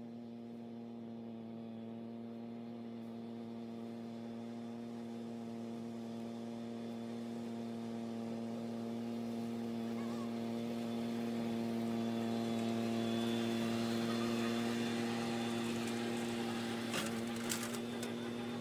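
An engine running at a steady speed, its hum growing gradually louder, with a few sharp clicks near the end.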